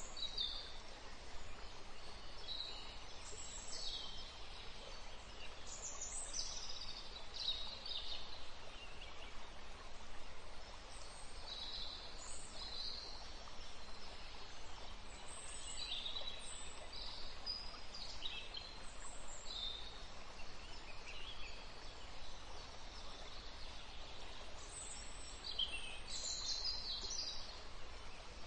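Birds chirping now and then in short high calls over a steady low background noise.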